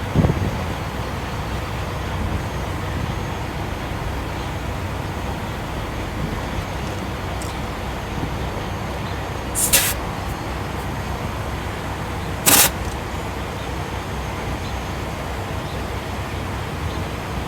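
Steady low rumble of heavy truck engines, with two short, sharp bursts of compressed-air hiss about three seconds apart.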